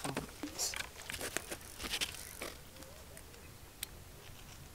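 Faint, scattered splashes of a hooked fish at the water's surface as it is drawn in on the line.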